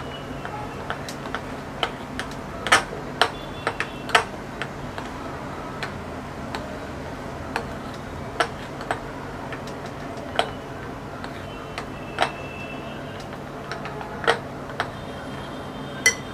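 Metal spoon clicking against the side of a glass mixing bowl while thick besan batter is stirred: irregular sharp clicks, roughly one a second.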